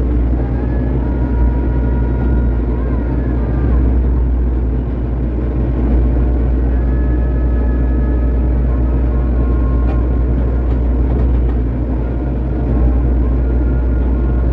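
Excavator's diesel engine running steadily under digging load, a deep continuous rumble with thin whining tones coming and going over it. A few light clicks come around ten seconds in.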